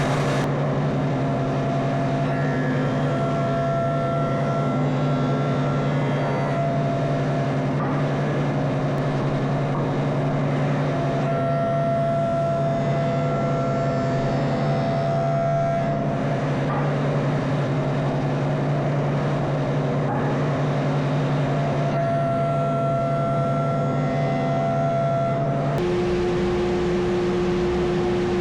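Wood lathe running steadily with a constant motor hum; its tone shifts near the end.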